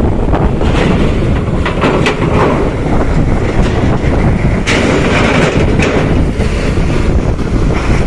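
Large bus engine running close by, with wind buffeting the microphone and a few scattered rattles.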